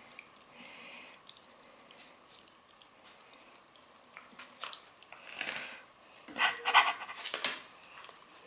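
Great Weimar puppies mouthing and chewing on a person's hand, with a few short, breathy bursts of puppy sounds in the second half, the loudest a little after halfway.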